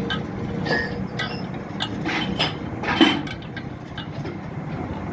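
Scattered metal clinks and knocks of parts or tools being handled, the loudest about three seconds in, over a steady low hum.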